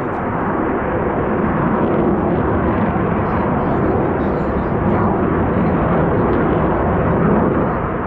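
Jet noise from the Black Eagles' KAI T-50 aircraft flying past, a steady rushing rumble that swells slightly after the start and eases near the end.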